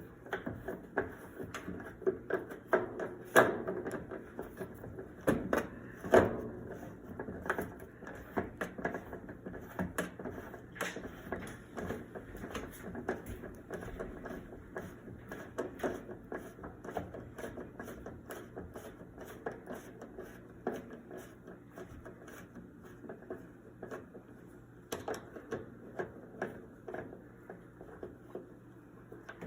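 Irregular clicks, taps and knocks of hand tools against the washing machine's panels and fasteners as the machine is taken apart. The knocks are loudest about three and six seconds in and grow sparser towards the end, over a faint steady low hum.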